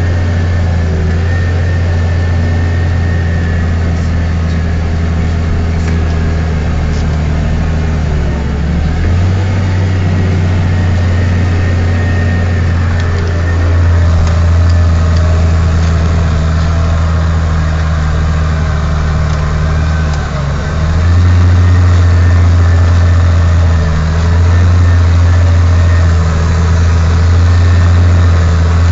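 Case IH CVX 1170 tractor's diesel engine pulling a plough through hard ground, heard from inside the cab: a steady low drone of an engine under heavy load. It grows louder several times, most clearly about nine and twenty-one seconds in.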